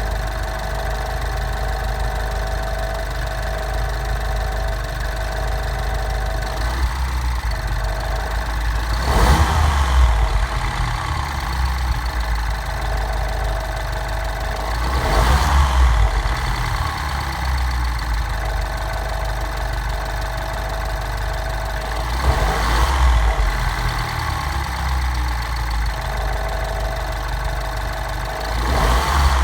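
The N18 1.6-litre turbocharged four-cylinder of a 2013 Mini John Cooper Works R56 idling steadily. Brief swells of louder sound come through it about every six to seven seconds, each lasting a second or two. The engine is being recorded for a strange noise whose cause is not known.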